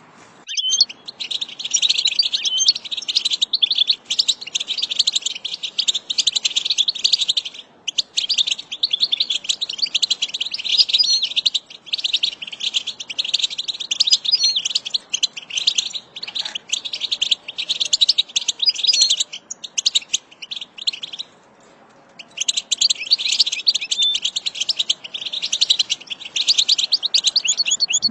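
European goldfinch singing: a fast, continuous twittering of rapid trills and chirps. It breaks off briefly about a third of the way in and for about a second two-thirds through.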